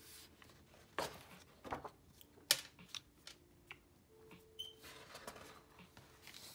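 Pages of a spiral-bound sketchbook being turned by hand: paper rustling with several sharp clicks and snaps, the loudest about two and a half seconds in.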